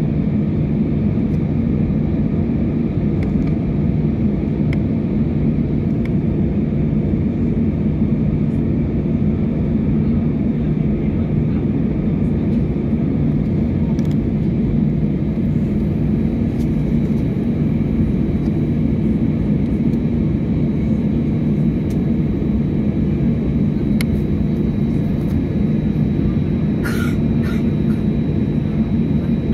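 Steady low mechanical drone heard inside an airliner cabin during deicing on the ramp, with a few faint clicks and ticks.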